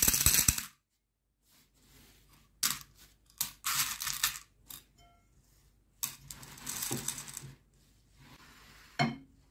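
Small candy-coated chocolates clattering onto a clear plate as they are poured, then clicking and rattling against each other in short spells as a hand spreads them around. A single sharp knock near the end.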